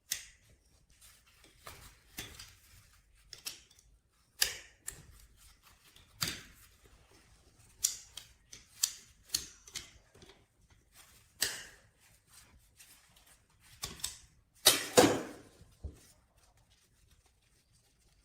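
Scattered sharp clicks and taps, a dozen or so at irregular intervals, with a louder clattering knock about fifteen seconds in.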